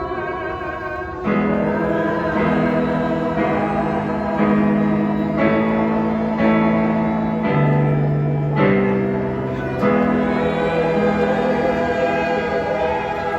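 Choir singing a slow song with accompaniment, sustained chords shifting step by step about once a second.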